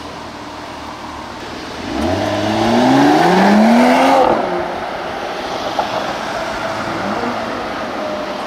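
Mercedes-AMG GLE 53's 3.0-litre six-cylinder engine accelerating: about two seconds in the revs climb for roughly two seconds, then ease back to a steady run.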